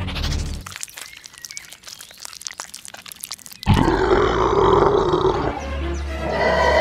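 Dubbed monster roar sound effect. It starts suddenly and loudly about halfway through and keeps going, after a stretch of quieter quick crackling clicks.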